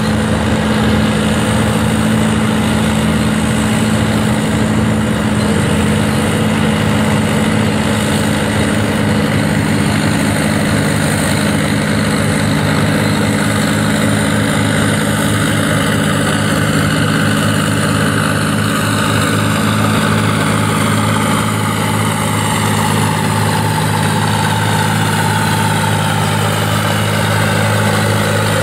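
Farm tractor's diesel engine running steadily at an even pitch, with no sharp revving or cutting out.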